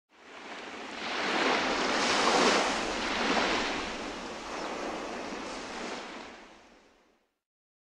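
Rushing water noise that fades in, swells for a few seconds and then slowly fades away.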